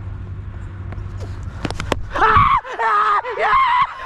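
Cricket fielders shouting and yelling as a wicket falls, starting about halfway in, just after a quick cluster of sharp knocks.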